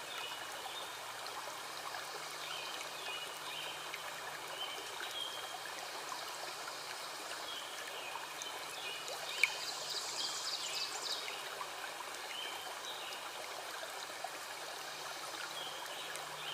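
Steady rush of running water, with small birds chirping over it now and then. A faster, higher burst of birdsong comes about nine seconds in.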